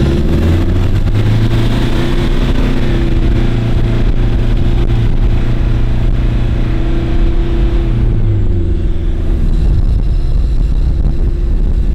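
Toyota Hilux engine running at a steady pitch while the truck drives, with wind rushing past the open window; about eight seconds in the engine note drops as it eases off.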